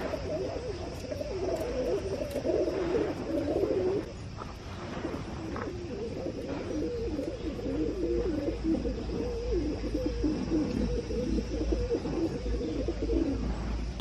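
Pigeons cooing, a continuous low warbling coo that eases off briefly about four seconds in.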